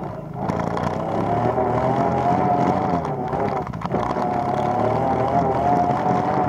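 ATV engine running under throttle on a trail ride, its pitch rising and falling gently, with brief dips in engine note just after the start and again a little before the middle.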